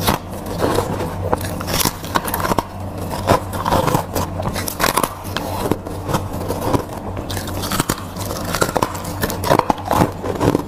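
Soft, frosty ice being bitten and chewed close to the microphone: a dense, irregular run of crisp crunches and crackles.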